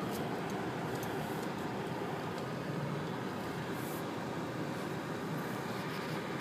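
Steady engine and road noise inside a moving car's cabin.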